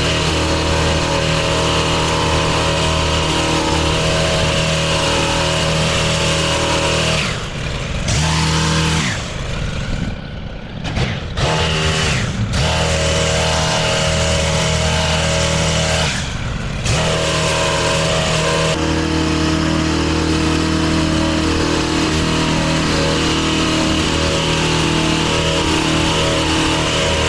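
Gas-powered pole hedge trimmer running at high throttle, its small engine steady. The throttle eases off three times, longest for about three seconds near the middle, before picking up again.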